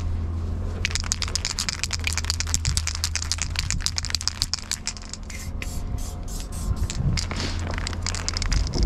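Aerosol spray paint can shaken in the hand, its mixing ball rattling in a quick run of clicks that starts about a second in and keeps going, with short pauses, until near the end.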